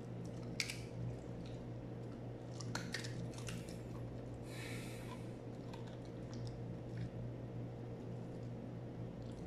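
Border collie chewing small treats and licking its lips: a few soft clicks and short wet, hissy sounds over a steady low hum.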